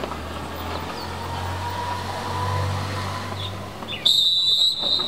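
A motor vehicle's engine rumbles past, swelling and fading, then a loud, shrill whistle blast starts suddenly about four seconds in and holds for about a second.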